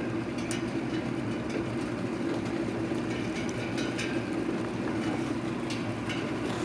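Heavy rain falling steadily in a thunderstorm, a constant rushing noise with faint scattered taps of drops.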